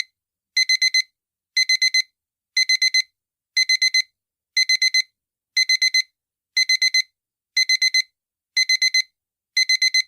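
Digital alarm clock beeping: quick groups of four high-pitched beeps, one group about every second, repeating steadily.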